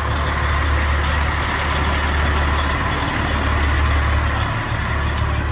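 A large vehicle's engine idling with a steady low rumble and outdoor background hiss.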